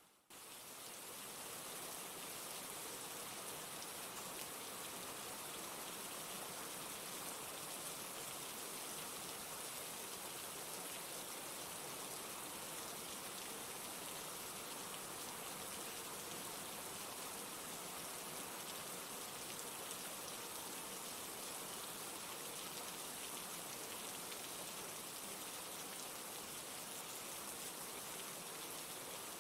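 Steady rain falling, an even hiss with fine drop patter. It dips out for a moment right at the start, then resumes.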